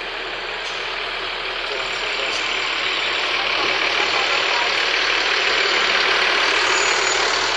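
A heavy road vehicle driving past, its engine and tyre noise swelling to a peak about six seconds in, then easing off.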